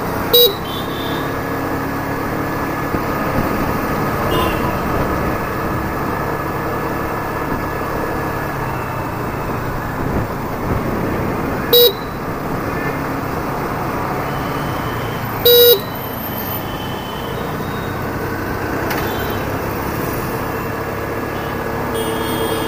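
Hero Destini 125 FI scooter's single-cylinder engine running steadily on the move through town traffic. Three short horn beeps cut through: one right at the start, one about halfway, and a slightly longer one a few seconds after that.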